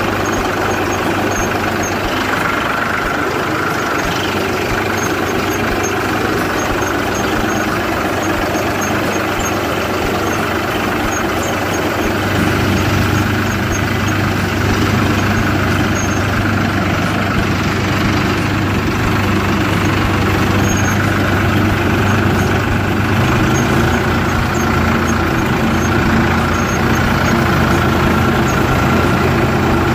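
Ford 3600 tractor engine running as the tractor drives across a harvested paddy field, its pitch and level stepping up about twelve seconds in and again a little past twenty seconds. A combine harvester runs alongside it as the tractor closes in behind it near the end.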